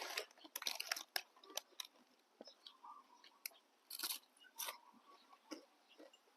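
A person eating boat noodles: irregular chewing and crunching with short clicks throughout.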